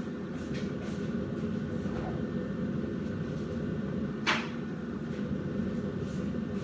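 Steady low hum of a kitchen appliance, with one short knock about four seconds in.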